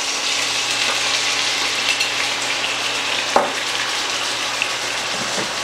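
Chicken breasts sizzling steadily in a hot pan as a ginger-lime sauce is poured over them, with a single light knock a little over three seconds in.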